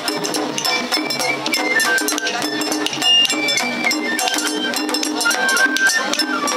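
Japanese festival hayashi music of the Kanda-bayashi style played on a float: a high bamboo flute melody stepping between held notes over continuous drum strokes and the clink of a small hand gong.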